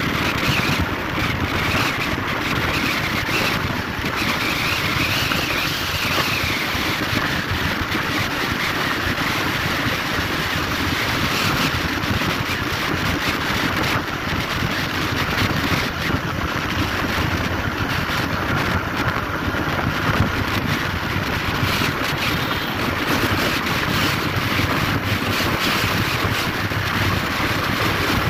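Steady rush of wind and tyre noise from a vehicle driving along a highway.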